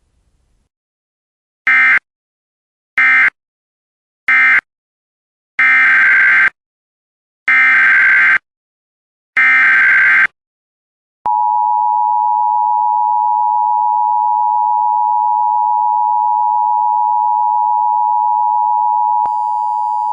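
Emergency Alert System tones. First come three short bursts of the EAS data squeal, the end-of-message code, then three longer data bursts, the header of the next alert. Then the steady two-tone attention signal sounds for about ten seconds.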